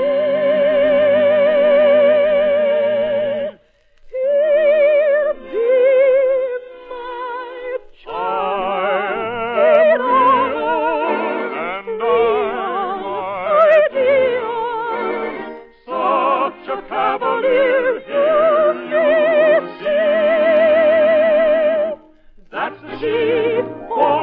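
Operetta singing with orchestra: a long held, wavering sung note closes a phrase, then voices sing on over the orchestra, with short breaks between phrases. It is an old radio broadcast recording with the highs cut off.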